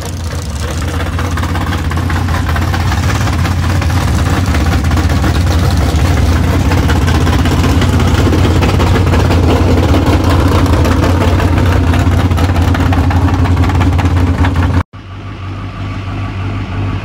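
Pulling pickup truck's engine running hard at high revs under load on the track, loud and steady after building over the first two seconds. About 15 seconds in it cuts off abruptly and a quieter engine runs on.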